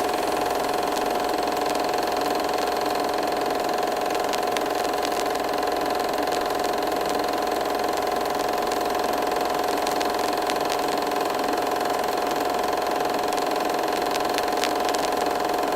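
A motor running at a steady speed: a constant hum with one strong unchanging tone and faint scattered ticks.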